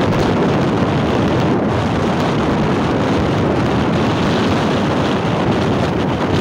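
Steady, loud rush of wind buffeting the microphone on a moving motorcycle.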